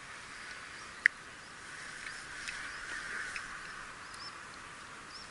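Steady chirring of an evening insect chorus, with a few faint short high chirps over it. One sharp click about a second in.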